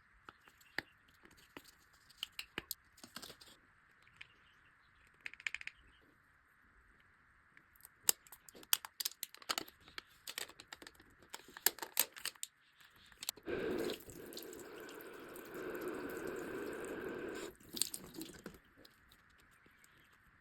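Nano tape crackling and clicking as it is handled and peeled. About two-thirds of the way through, water pours steadily for about four seconds as the tape squishy is filled.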